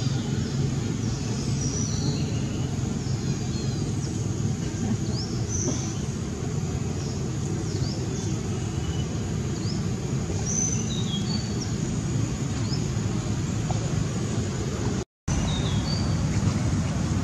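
Outdoor ambience: a steady low rumble with birds chirping, many short high chirps scattered throughout. The sound drops out completely for a split second near the end.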